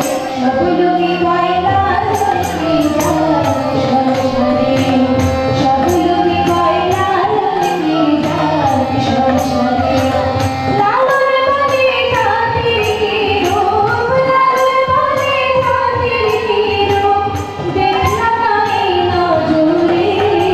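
A woman sings a flowing melodic song into a microphone, accompanied by a harmonium's held chords and a steady percussion beat.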